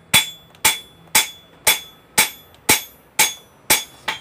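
A blacksmith's hammer striking steel on an anvil in a steady rhythm, about two blows a second, nine in all. Each blow has a short, high, metallic ring.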